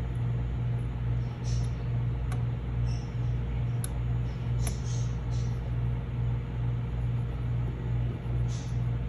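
Steady low hum with a slow, even pulse of about three beats a second, and a few faint clicks and taps from small objects being handled.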